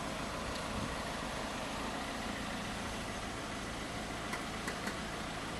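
Steady rumble and hiss of road traffic, with a few faint clicks about four to five seconds in.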